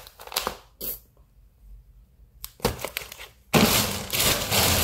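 Plastic grocery packaging being handled: a few light clicks and crackles, then a loud, continuous crinkling of plastic in the last second or so.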